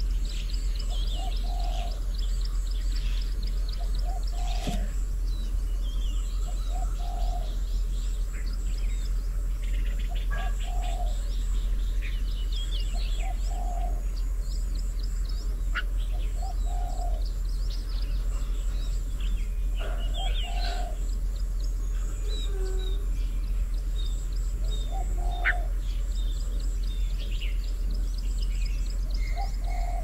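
A dove cooing in short repeated phrases every few seconds, over small birds chirping and calling, with a steady low rumble underneath.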